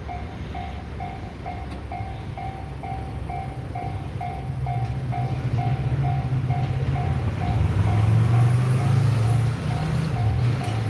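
Japanese railway level-crossing warning bell ringing steadily at about two strokes a second, while a train's rumble grows louder from about four seconds in and peaks near the end.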